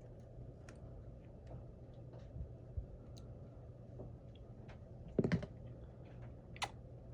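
Scattered small clicks and taps of tools and phone parts being handled in an iPhone screen repair, over a faint steady low hum. A louder cluster of clicks comes about five seconds in, and a single sharp click follows shortly after.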